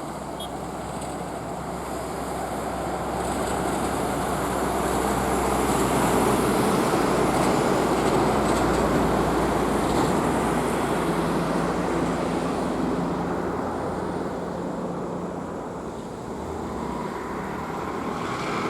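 A bus under way on the road: steady engine and tyre-and-road noise that swells in the middle and eases off, with a faint rising whine near the end.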